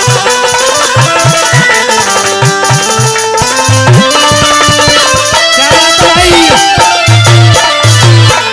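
Instrumental interlude of Haryanvi ragni folk music: hand drums beat a quick, steady rhythm under a held, wavering melody line.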